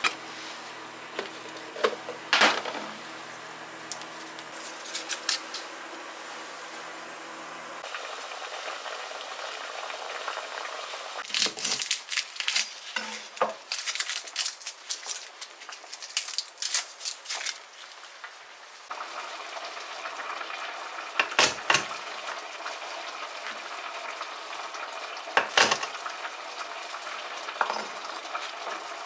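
Kitchen sounds: a pot of pumpkin simmering on a gas burner over a low steady hum, then a chef's knife cutting raw chicken on a wooden chopping board, with scattered clicks and several sharp knocks of the blade against the board.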